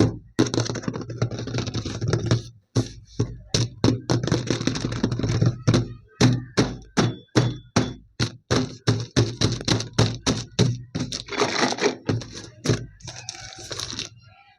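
Unboxing handling noise: a rapid, irregular run of sharp clicks, taps and knocks, with stretches of rustling packaging, over a steady low hum.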